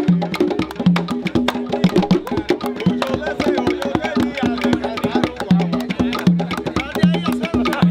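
Rumba music on hand drums: conga-like drums repeat short low tones in a steady rhythm over dense, sharp clave-like clicks.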